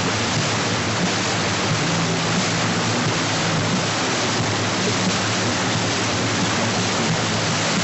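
Steady rush of wind and churning wake water behind a moving wakesurf boat, with the boat's engine humming low underneath.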